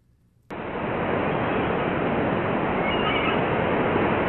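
Steady rushing wash of ocean waves that cuts in abruptly about half a second in, with a few faint high squeaks over it.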